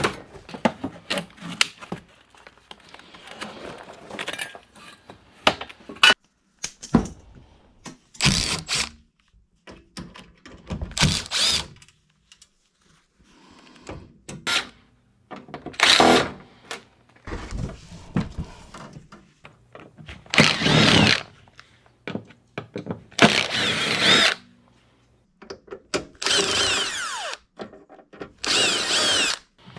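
Cordless impact driver running in short bursts of about a second, several times over, with a whine that rises and falls as it backs screws out of the dehumidifier's casing. Clunks and rattles of metal and plastic parts being handled come between the bursts.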